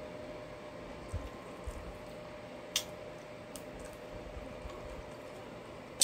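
Close-miked eating sounds as a piece of chicken is pulled apart and bitten: a few sharp mouth clicks and smacks, the loudest about three seconds in and another at the very end, with small soft thuds before them, over a faint steady hum.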